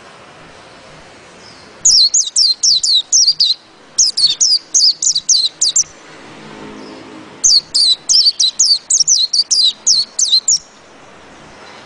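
White-eye (pleci) singing its rolling song: three fast runs of high, downward-sliding notes, about five a second, with short pauses between, the last run the longest.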